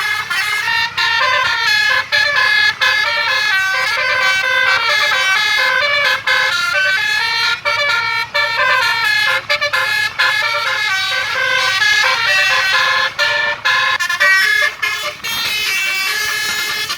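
Tour bus's 'telolet basuri' musical horn playing a tune: pitched horn notes step up and down in quick succession, with a few brief breaks.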